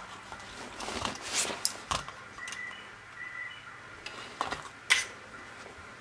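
Scattered light clicks and clinks of small hand tools (soldering iron and pick) handled while soldering on a receiver's circuit board, with two short faint high tones near the middle.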